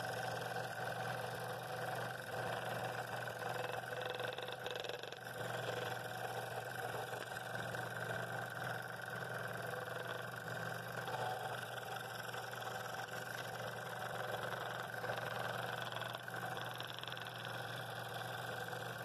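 Scroll saw running steadily, its fine blade cutting a bowl ring out of a poplar blank, with a constant motor hum under the sound of the cut.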